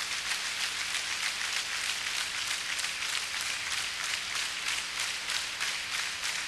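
Concert audience applauding: a dense, steady patter of many hands clapping.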